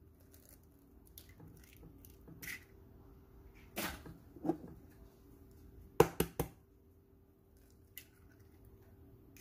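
Eggs being cracked into a mixing bowl: an egg tapped sharply on the bowl's rim three times in quick succession about six seconds in, with a few softer knocks earlier. A faint steady hum runs underneath.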